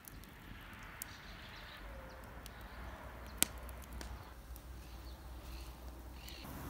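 Wood campfire crackling under a frying pan, with a few sharp pops, the loudest about three and a half seconds in.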